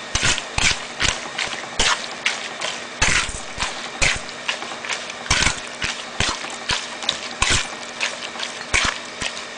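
A hand mixing grated young coconut with shrimp, chopped chillies, tomato and tempe in a bowl: a quick, uneven run of mixing strokes, several a second, with a faint steady hum underneath.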